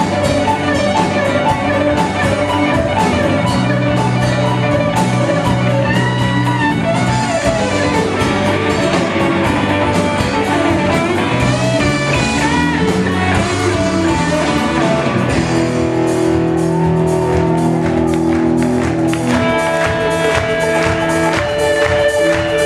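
Live rock band with an electric guitar solo: bent, gliding lead notes over bass and drums. About sixteen seconds in, the drum hits thin out and held notes ring on.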